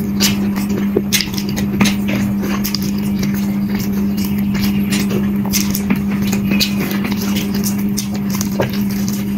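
Close-up eating sounds: irregular wet clicks and smacks of chewing and of rice and curry being eaten by hand, over a steady low hum.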